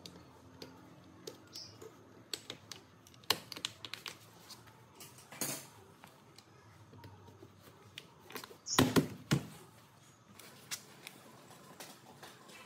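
Tools and small metal parts being handled: scattered clicks and light knocks, with a louder clatter about nine seconds in.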